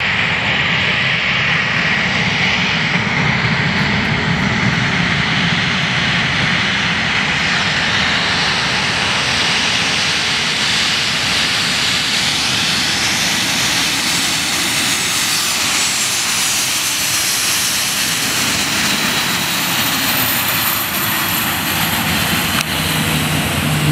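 Boeing 737-900ER's CFM56 jet engines running loud and steady as the airliner rolls down the runway after landing, with a thin high turbine whine coming in over the last several seconds as it passes close by.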